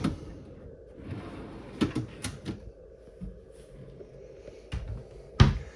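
Pull-out pantry drawers being handled, with a few light knocks and clicks about two seconds in, then the cabinet door swung shut with a louder knock near the end.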